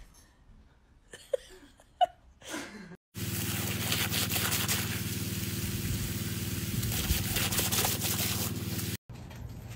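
A dog biting and lapping at water gushing from a garden hose: a dense crackly splashing and chomping noise over a steady low hum. It starts suddenly about three seconds in, after a quiet stretch, and cuts off suddenly near the end.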